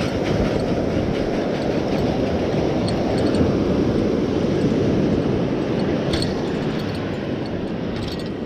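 Steady rushing noise of breaking surf and wind, with a few faint clicks.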